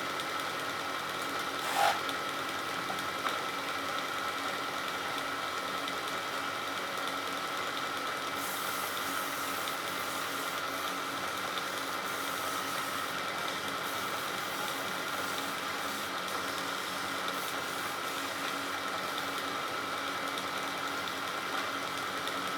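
Wood lathe running steadily with an even machine hum, and a brief knock about two seconds in.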